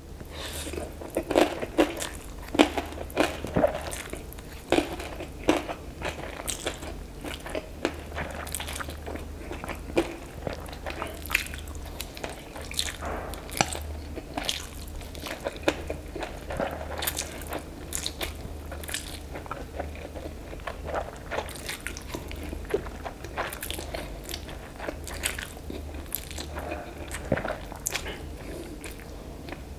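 A person slurping and chewing instant noodles eaten with chopsticks, heard as a steady stream of short mouth clicks and smacks.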